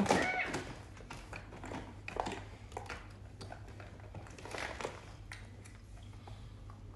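Faint clicks and rustling of plastic toys being handled and shifted in a toy pile, a little busier about two seconds in and again around the middle. A low steady hum runs underneath.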